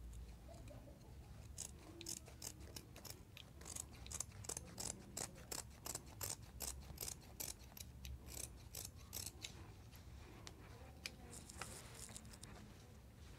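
Scissors snipping through stretch fabric in a quick, even run of snips, about three a second, which then stops; a short rustle of the fabric follows near the end.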